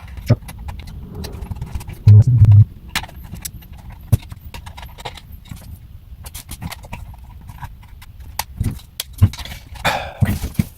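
Scattered clicks, taps and rustles of small parts and tools being handled during instrument-cluster work, with a loud low thump about two seconds in and a louder rustling stretch near the end.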